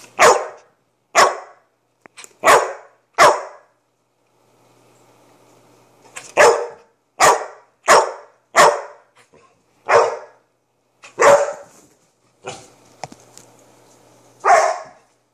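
Puppy barking at the person in play, about a dozen short, sharp single barks with a pause of a couple of seconds about a third of the way in.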